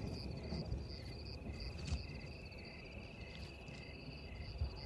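Crickets chirping in the night: several steady high trills, with one short chirp repeating about two to three times a second, over a faint low rumble.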